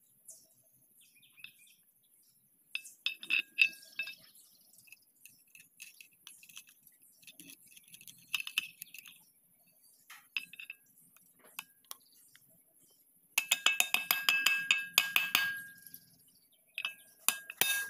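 Steel hand tools clinking against a Landini DT85 tractor's front-axle pinion shaft and bearing assembly. Scattered metallic clinks give way, a little past the middle, to a rapid string of ringing metal taps lasting about three seconds, then a few more strikes near the end.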